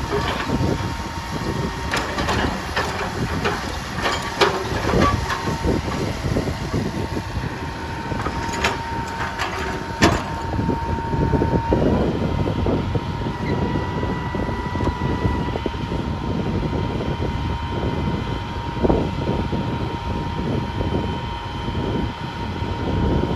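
Heavy earthmoving machine running and working: a continuous engine rumble with scattered sharp knocks and clanks, and a thin steady whine that wavers and briefly drops out partway through.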